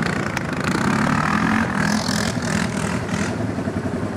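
Quad bike (ATV) engine running at moderate revs as it is ridden, its note wavering slightly up and down, with a patch of hissing noise about halfway through.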